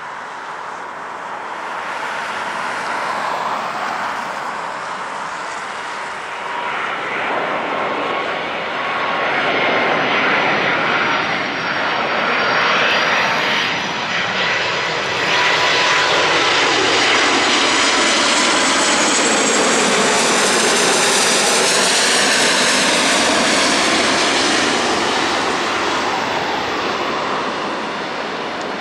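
Airbus A330-200 with Rolls-Royce Trent 772B turbofans on final approach with gear down, flying low overhead: jet engine noise with a thin high whine, growing louder as it nears, loudest about midway through as it passes over, then easing off near the end.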